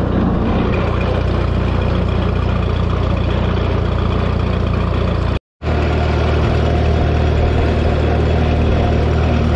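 Propane-fuelled Minneapolis-Moline 302 tractor engine running steadily at road speed, heard from the seat. The sound cuts out for a moment a little past halfway, then resumes the same.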